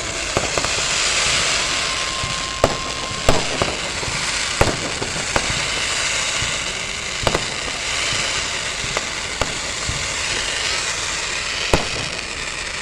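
Fireworks display: loud aerial shells going off in sharp bangs every second or two, over a steady hiss.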